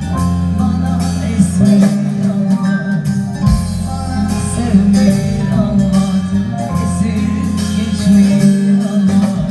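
Korg Pa4X arranger keyboard played live, its accompaniment style sounding a steady bass line and beat under a melody, with singing over it.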